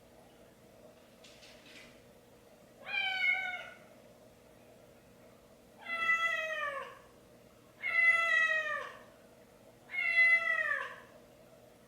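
An animal calling four times, each call about a second long and falling in pitch at its end.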